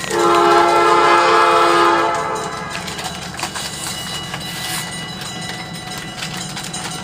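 EMD GP9 diesel locomotive sounding its air horn in one long chord of several notes, lasting about two and a half seconds, then the steady low rumble of its diesel engine as it runs toward the train.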